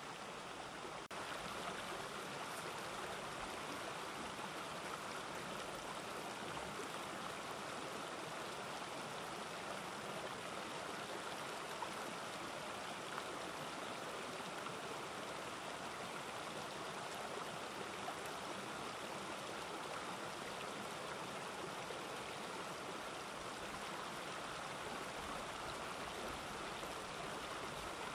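Running water: a steady, even rush.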